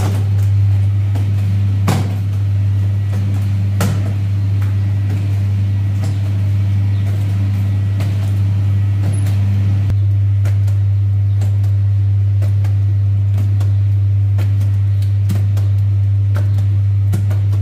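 Steady, loud low mechanical hum, with scattered sharp knocks and clicks over it.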